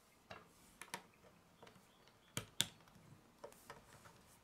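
Small plastic Lego pieces clicking as they are handled and snapped together, the rocket being fitted onto the truck. A scatter of light clicks, with two sharper snaps a little past halfway.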